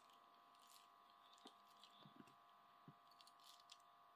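Near silence: room tone with a faint steady hum and a few faint clicks.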